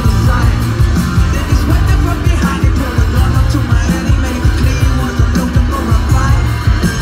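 Live alternative rock band playing, with a male lead singer singing into a microphone over drums and strong bass.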